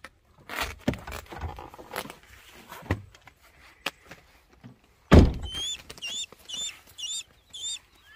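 An SUV door opening with rustling and knocks as a person climbs out, then slamming shut with one heavy thunk about five seconds in. A bird then calls in a quick series of short hooked chirps, about two to three a second.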